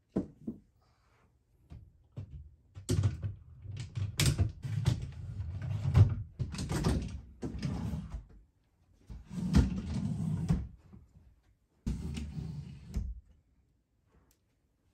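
Drawers of a newly assembled IKEA chest of drawers being slid in along their metal runners and pushed shut, with a couple of sharp knocks at the start. Three spells of sliding with knocks follow, separated by short pauses.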